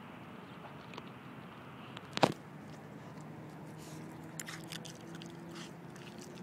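Alaskan malamute chewing a raw rabbit carcass: one sharp, loud crunch a little over two seconds in, then a run of smaller crunching clicks about two seconds later.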